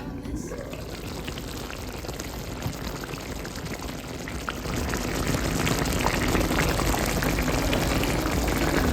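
A pot of liquid boiling, bubbling steadily with many small pops, getting louder about halfway through.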